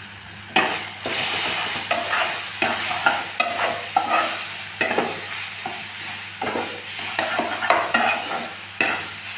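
A spatula stirring and scraping onion-tomato masala with freshly added spice powders around a kadai, in repeated strokes that start about half a second in, while the masala sizzles in hot oil.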